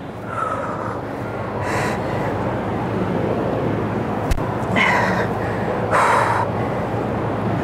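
A person breathing hard through push-ups, with about four short, sharp exhales over a steady background hum.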